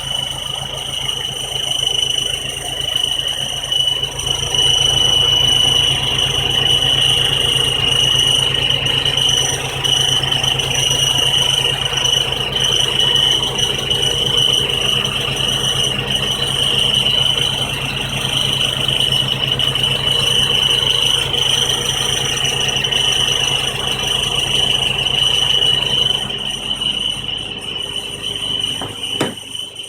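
1999 Honda Civic engine running with a steady, high-pitched squeal over its low hum. The squeal is metal on metal: engine vibration rubbing the exhaust down pipe against the resonator pipe at a joint with no gasket.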